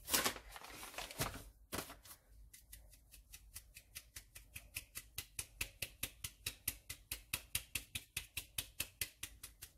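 Round metal flour sieve over a glass bowl, tapped and shaken by hand to sift flour through. A few louder rustling shakes come in the first two seconds, then a fast, even run of light ticks, about five a second.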